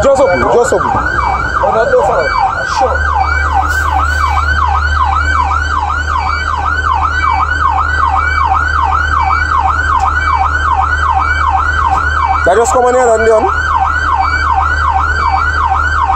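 Fire truck's electronic siren in yelp mode, a fast rising-and-falling sweep about three times a second, heard from inside the cab over a steady low engine drone.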